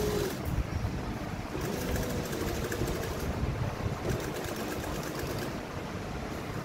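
Electric sewing machine stitching through fabric, its motor and needle running steadily.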